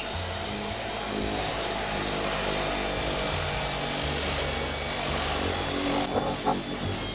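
Electric random orbital sander running at low speed, its pad hissing as it scuffs the oxidized, whitened surface off grey plastic scooter fairing. The sanding hiss grows brighter about a second in and eases back about six seconds in.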